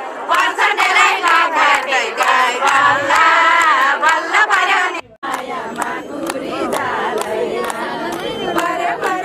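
A crowd of voices singing and chanting together, with sharp claps running through it. The sound drops out briefly about five seconds in, then a looser crowd of voices carries on.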